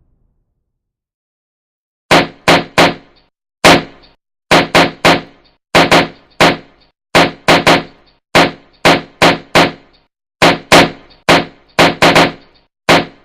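Balloons popping one after another, about two dozen sharp pops in irregular quick clusters of two or three, starting about two seconds in.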